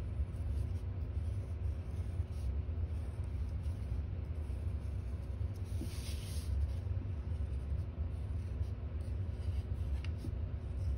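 Steady low rumble of background noise, with faint scratching of a black Sharpie marker drawing lines on crumpled paper. The paper rustles briefly about six seconds in.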